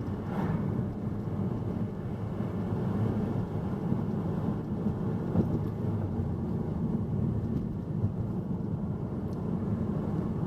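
Car driving along a road, heard from inside the cabin: a steady low rumble of tyre and engine noise.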